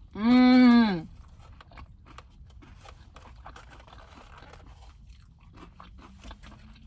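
A short, loud hummed 'mmm' near the start, then close-miked chewing of crunchy fried food: many small crackles and crunches.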